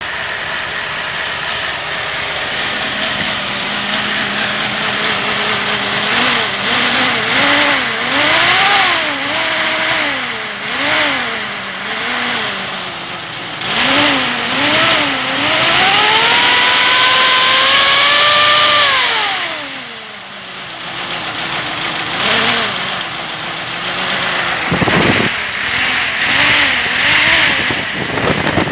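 ZAZ-965 Zaporozhets air-cooled V4 engine idling steadily, then revved in a series of short blips about once a second. It is then held at a higher rev for several seconds and falls back to idle, with a few smaller blips near the end.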